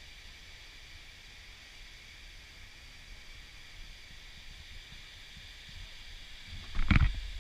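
Waterfall rushing in a steady, even hiss of falling water. A brief loud burst near the end stands out above it.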